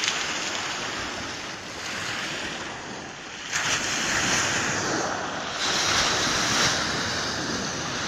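Sea waves breaking and washing up over a pebble beach, the surf surging louder about three and a half seconds in.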